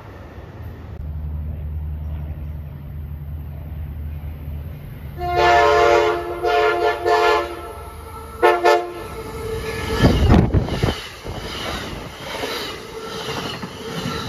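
Diesel passenger train approaching with a low engine drone, then its multi-tone air horn sounding several blasts about five seconds in and a short one a few seconds later. The train then rushes past with wheel clatter.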